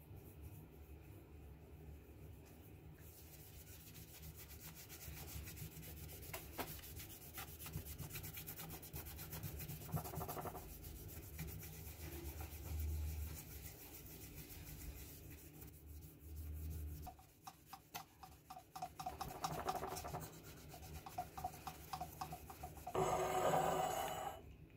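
A cloth pad rubbed quickly back and forth over a steel scissor blade, polishing it: a fast, fine scrubbing. A short, louder burst of handling noise comes near the end.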